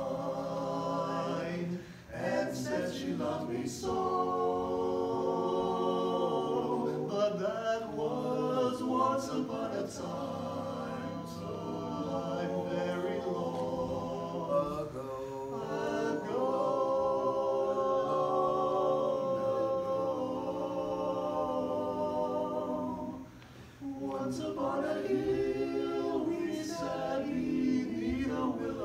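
Male barbershop quartet singing a cappella in four-part close harmony, sustaining chords, with two brief pauses between phrases.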